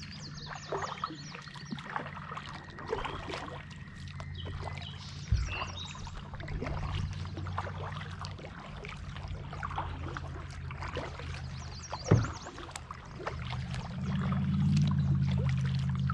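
A kayak moving through calm water, with small splashes and drips of water around the hull and paddle and a steady low hum underneath that grows louder near the end. There are two sharp knocks against the hull, about five seconds in and again about twelve seconds in.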